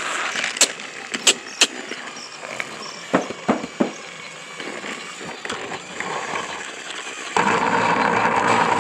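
Sharp clicks and knocks of plastic toy train track and trains in the first few seconds. Near the end a battery-powered TrackMaster toy train's motor cuts in suddenly with a loud, steady whir.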